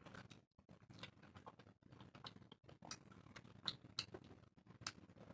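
Faint eating sounds of a person eating chicken curry and rice by hand: scattered soft mouth clicks and smacks, with a few slightly louder ones in the middle.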